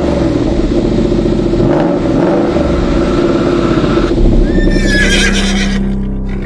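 Intro sound effect: a car engine running loudly for about four seconds, then a horse whinnying about five seconds in, with a falling call, before the sound fades out.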